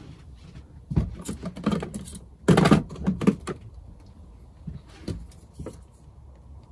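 Clicks, knocks and short rattles of hands handling power cables, plugs and small items. A cluster about a second in, the loudest rattle about two and a half seconds in, then a few lighter clicks.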